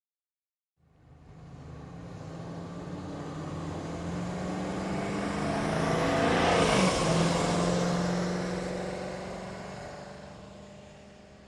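A car passing by: the engine and tyre noise swells up from silence to a peak about seven seconds in, where the engine note drops in pitch as it goes past, then fades away.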